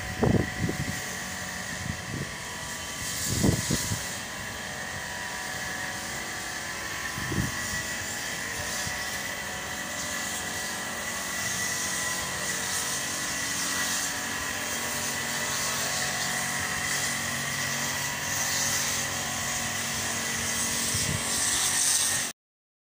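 Steady machinery drone with a thin high whine running through it, with a few low wind thumps on the microphone in the first few seconds. It cuts off suddenly near the end.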